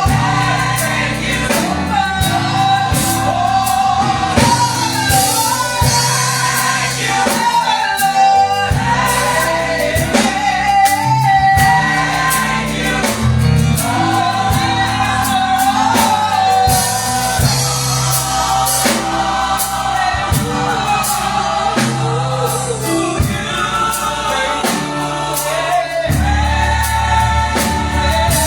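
Live gospel music: a choir singing over a band with bass and drums.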